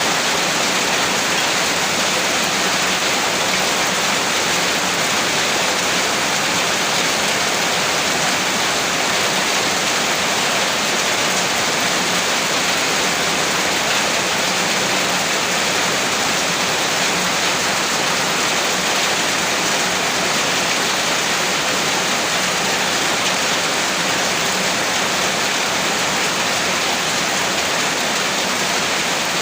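Heavy rain falling in a steady, even downpour, a dense hiss with no breaks or changes.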